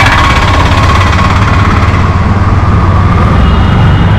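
Auto-rickshaw's engine running steadily while the rickshaw drives, heard from inside its open passenger cabin as a loud, even low rumble.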